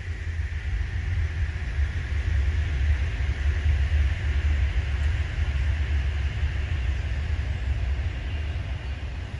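Wind buffeting the microphone, giving a gusty low rumble. Under it is a steady hiss that swells in the middle and eases near the end.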